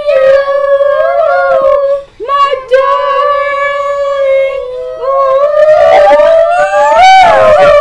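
A high voice singing a slow ballad a cappella, holding long notes. There is a brief break about two seconds in, and near the end a rising, swelling phrase.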